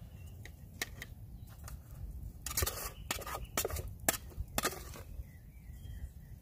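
A metal spoon scraping and clinking against the inside of a metal camping pot while food is spooned out: a few sharp clinks, most of them between about two and five seconds in.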